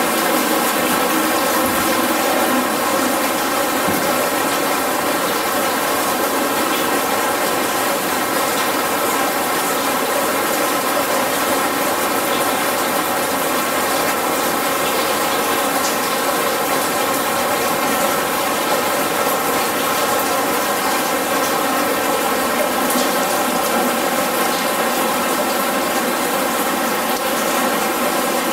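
The rain of a 'Pavilion of Rain' installation falling steadily as a constant rush of water, with a steady hum running through it. It does not change or let up.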